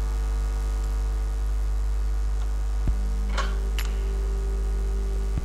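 Steady low electrical mains hum with a steady tone above it, broken by a few faint clicks around the middle and near the end.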